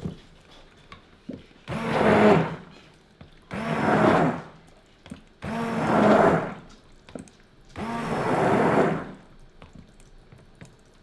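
Handheld immersion (stick) blender switched on in four short pulses, each about a second long, blending mica colorant into soap-making oil in a mixing bowl.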